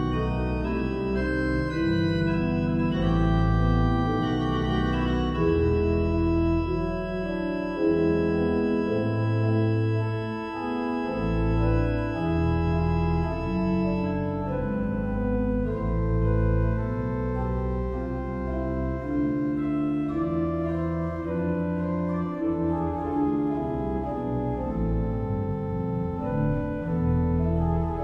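Church pipe organ playing a polyphonic piece: sustained chords over a bass line that moves about once a second, the sound growing less bright about halfway through.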